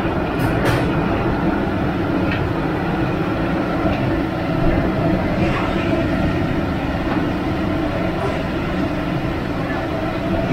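Steady mechanical rumble with a constant low hum, and a couple of faint clicks about half a second in.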